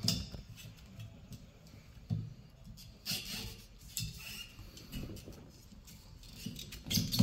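Windscreen wiper blade being handled on its wiper arm: a few sharp plastic clicks and knocks with handling rustle between, the loudest near the end.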